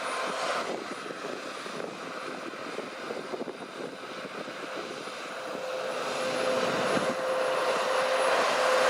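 Claas Lexion 670 combine harvester running at work: a steady machine drone with a held tone, growing louder over the second half.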